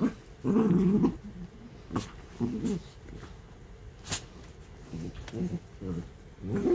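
Two miniature dachshunds play-fighting, letting out low growls in short bouts, the loudest about half a second in. Two sharp clicks come between the growls.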